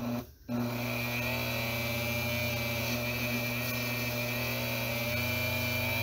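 Dremel rotary tool in a drill-press stand, fitted with an abrasive Scotch-Brite-style wheel, switching on: a short burst, a brief drop, then from about half a second in it runs steadily at high speed with a constant whine.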